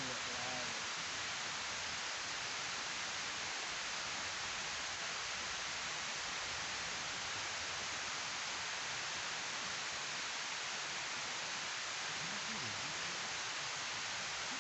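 Water rushing steadily down a weir spillway into the channel below: a constant, even hiss of falling water.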